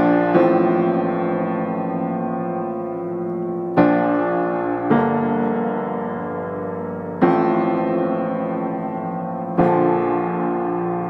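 Background piano music: slow, sustained chords, a new chord struck every few seconds and left to fade.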